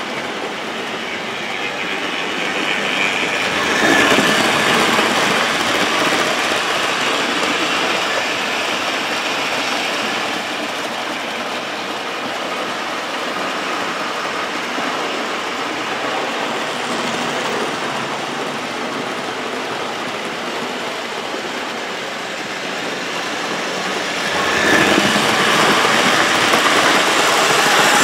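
OO gauge model BR Britannia locomotives and their coaches running on the layout's track: a steady running noise of wheels on rail and electric motors. It grows louder about four seconds in, and again for the last few seconds as a train passes close.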